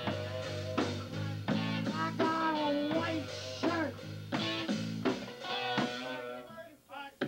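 Rock band playing live: a drum kit keeping a steady beat, electric guitar and bass guitar. About five seconds in, the bass and low end drop away and the playing thins out to lighter guitar figures.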